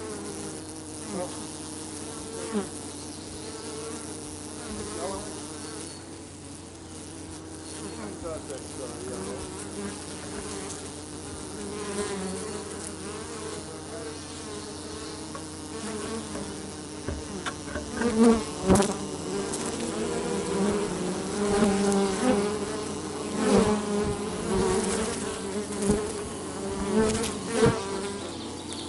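Feral honey bees buzzing at their nest entrance in a pine tree hollow, with single bees droning loudly as they fly close past. It gets louder from about halfway through, with a few sharp knocks.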